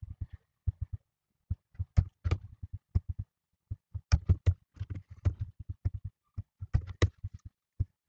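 Computer keyboard typing mixed with mouse clicks: irregular clusters of short taps, several a second, with brief pauses between them.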